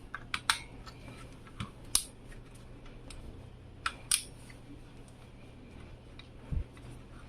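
Computer parts and packaging being handled: scattered sharp clicks and light taps, with a dull low knock about six and a half seconds in.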